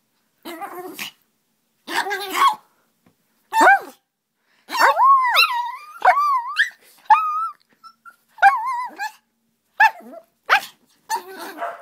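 Chihuahua puppy barking and growling in play: a string of short, high yaps, about ten of them, some drawn out with a rise and fall in pitch.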